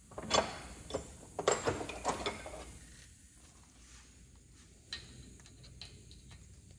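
Small metallic clicks and clatter of hand tools and metal parts being handled, a quick cluster over the first two and a half seconds, then a couple of single clicks later on.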